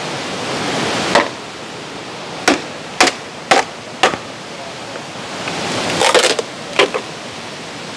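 Wood being whacked by hand: sharp knocks and cracks, single strikes about half a second apart, then a quick flurry of them about six seconds in, over the steady rush of a waterfall.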